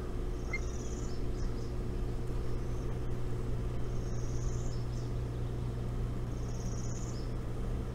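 Steady low hum, with a short, high, pulsing trill repeated three times about three seconds apart.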